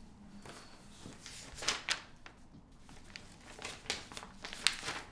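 Sheets of paper rustling and crinkling as they are handled and leafed through, in short bursts: one cluster about one and a half seconds in, and more from about three and a half seconds on, loudest near the end.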